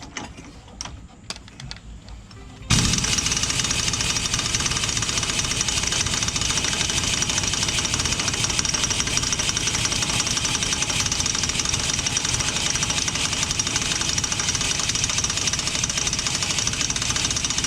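Half-inch-drive impact wrench hammering continuously on a rust-seized wheel-bearing spindle nut. It starts suddenly about three seconds in, after a few clicks of the socket and adapter being fitted, and runs at an even, loud level throughout.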